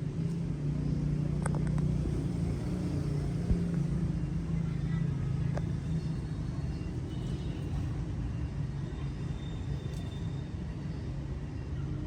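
A low, steady rumble, stronger in the first half, with a few faint clicks.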